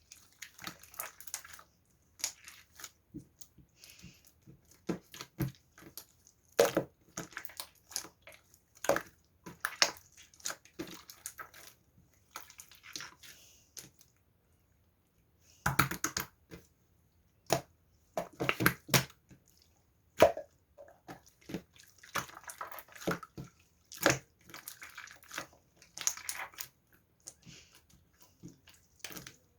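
Irregular clicks and taps in clusters, with a short pause about halfway through.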